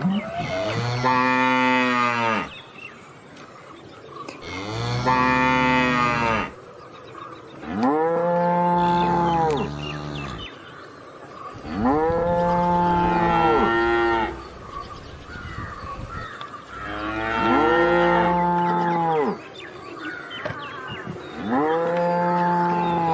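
Cow mooing: six long moos of about two seconds each, spaced a few seconds apart, each rising and then falling in pitch.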